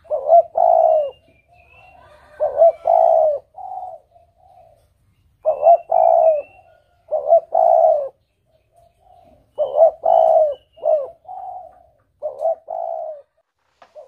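A dove cooing in three repeated phrases of several notes each, with faint chirps of small birds in the background.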